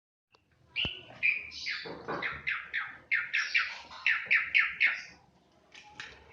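Asian pied starling calling: a quick run of about fifteen short, harsh notes, starting about a second in and stopping about five seconds in.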